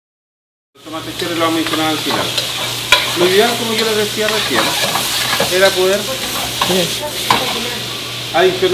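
Food sizzling as it is stir-fried in a wok over a gas burner, a metal utensil scraping and knocking against the pan. The sound starts suddenly about a second in.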